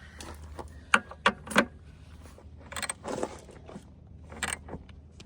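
Metal clinks and rattles of wrenches working on power steering hose fittings: three sharp clinks about a second in, then more clinking around three seconds and again near four and a half seconds.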